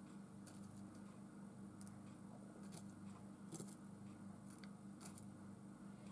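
Near silence: a low steady room hum with faint scattered light clicks and ticks from small craft supplies being handled.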